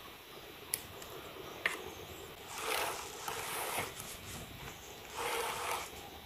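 Pruning scissors snipping thin bonsai twigs, two sharp clicks in the first two seconds, followed by two longer hissing swishes.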